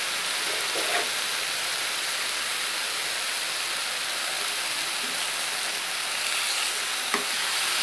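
Marinated paneer cubes sizzling in oil on a tawa over full flame: a steady frying hiss, with a light tap of the spatula near the end.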